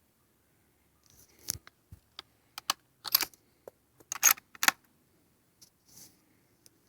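A run of sharp, short clicks and snaps, irregular and close together, starting about a second in. The loudest come in the middle, and a few fainter ones follow near the end.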